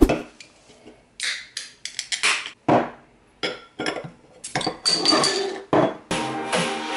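Aluminium drink cans and a glass bottle being picked up and set down on a desk: a string of irregular knocks and clinks with short rustling noises between them. Music starts faintly near the end.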